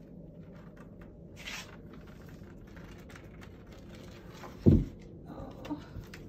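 Small dog's paws scuffing and ticking faintly on a hardwood floor as he staggers unsteadily after a seizure, with one loud, short thump about three-quarters of the way through.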